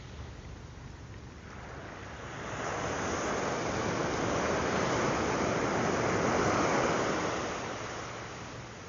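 Surf on a sandy beach: a wave breaks and washes in, its rush swelling about two seconds in, peaking, and fading away near the end.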